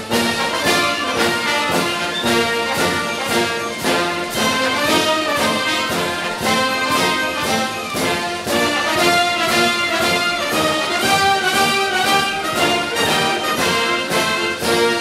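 Background orchestral music with brass and a steady beat.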